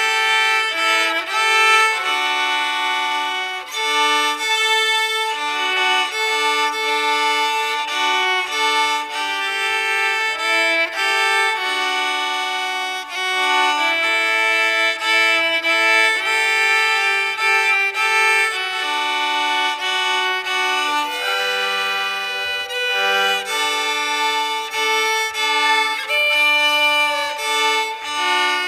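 Violin music: a melody played on bowed violin, with notes changing about every half second to a second.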